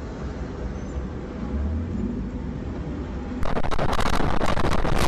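Low rumble of a vehicle's engine and road noise, then about three and a half seconds in, a sudden switch to a louder, rough, fluttering rush of wind on a dashcam's microphone as a vehicle drives at speed.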